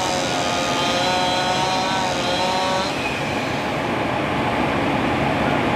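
An engine running steadily at high speed, its whine cutting out about three seconds in and leaving a constant rushing noise.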